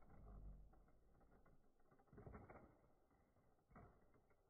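Faint whirring of a small remote-control monster truck's motor and gears, coming in a few short bursts as it is driven at the ramps.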